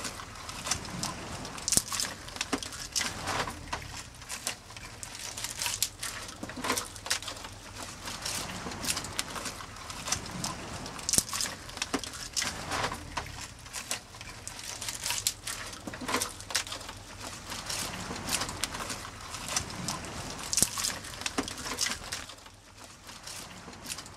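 Mussel shells clicking and knocking irregularly as they are handled and packed into a mesh mussel sock, with a knife scraping on the wooden board.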